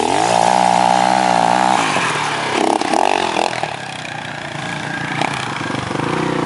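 Dirt bike engine revving hard under load on a steep hill climb: the pitch rises and is held for about two seconds, then eases and rises again in shorter bursts.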